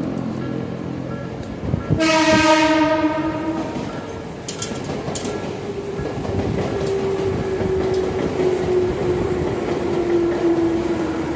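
Tobu 10030-series electric train sounding its horn once, for about two seconds, a couple of seconds in. After the horn the train runs on with wheels clacking over the rail joints and a steady whine that slowly drops in pitch as it slows into the station.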